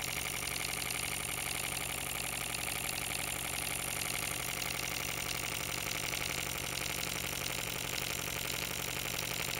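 GAGE TVR1A twin-cylinder model steam engine running steadily on compressed air during its break-in run. It makes a fast, even stream of exhaust beats with light mechanical clatter.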